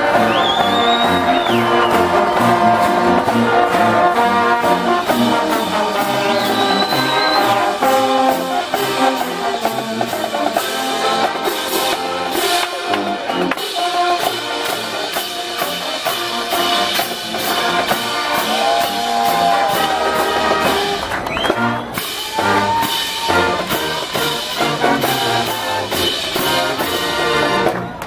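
Marching band playing a tune: trumpets, sousaphone and other brass, with a steady beat that comes in plainly about halfway through.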